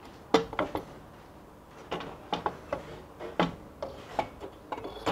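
Aluminium drill press table being handled and slid off the machine: a series of irregular sharp metal knocks and clanks, the loudest about half a second in.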